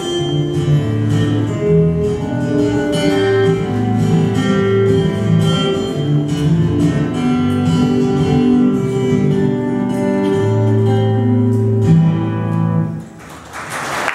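Acoustic guitar playing the closing instrumental passage of a song, picked melody notes over chords, ending about 13 seconds in. Audience applause starts just after the last notes.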